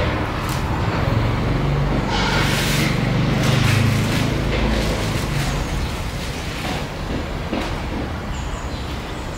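An engine running, its low hum swelling and wavering over the first half and then easing off, with a few short clicks and rustles over it.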